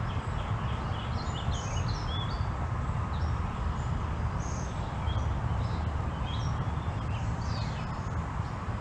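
Small birds chirping in short, scattered calls over a steady low rushing background noise.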